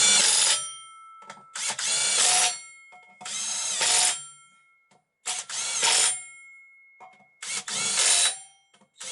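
Hand-held power tool, like a cordless drill or driver, run in repeated short bursts of about a second each, roughly every two seconds, its motor spinning up each time.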